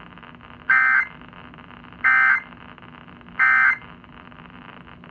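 Emergency Alert System end-of-message (EOM) data bursts: three short, shrill digital warbles about a second and a half apart, marking the close of the alert.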